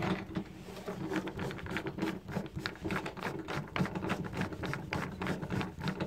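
Screwdriver backing a screw out of a door knob's metal mounting plate: a run of quick, irregular metal clicks and ticks.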